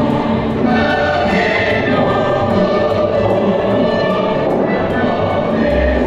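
Choral music: a choir singing with instrumental accompaniment, held steady throughout.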